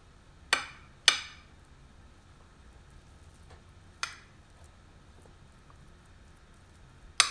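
A utensil clinking against a dish while toppings are spread: four sharp clinks with a short ring, two close together about half a second apart near the start, a softer one about four seconds in and a loud one at the very end.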